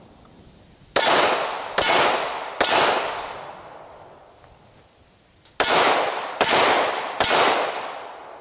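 Two strings of three handgun shots fired at steel targets. Each shot is a sharp crack with a long ringing tail, the shots in each string a little under a second apart, and about three seconds between the strings.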